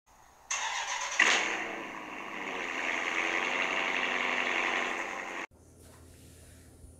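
Channel logo intro sound effect: a loud, steady, engine-like noise comes in about half a second in, with a sharp hit about a second in, and cuts off abruptly after about five seconds.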